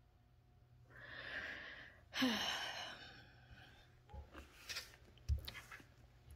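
A person breathing out, then a louder sigh that falls in pitch. A few soft clicks and two dull thumps follow.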